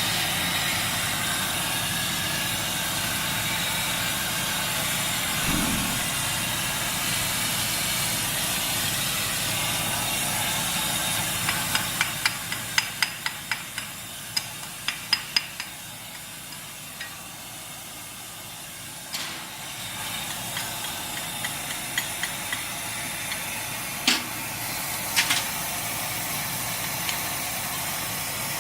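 Welding arc crackling and hissing steadily for about eleven seconds, then cutting out. A quick run of sharp taps on metal follows, about three a second, with a few more single taps near the end.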